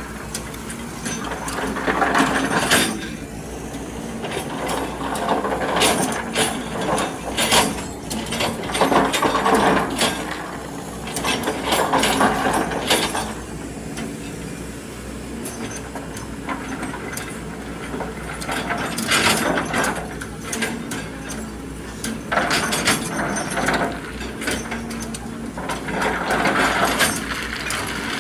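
Excavator working: the engine runs steadily underneath while the machine clanks and rattles, the noise swelling every couple of seconds as it moves.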